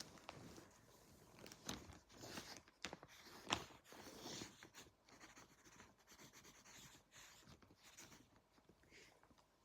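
Faint pencil scratching on paper in short irregular strokes, with a sharper click about three and a half seconds in.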